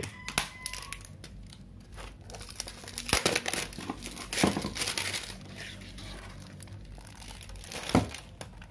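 Vinyl skin-decal sheet crinkling and rustling as it is unrolled and flexed by hand, with a few sharper crackles.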